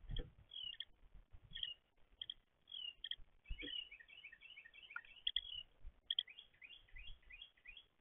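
Small songbirds chirping: short high calls throughout, a quick run of notes about halfway through, and a rapidly repeated phrase near the end. A couple of soft low thumps, near the start and about halfway in.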